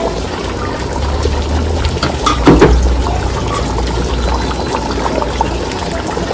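Mutton and tomato gravy cooking in a large aluminium pot: a steady bubbling hiss with a low rumble under it. About two and a half seconds in there is a brief louder sound.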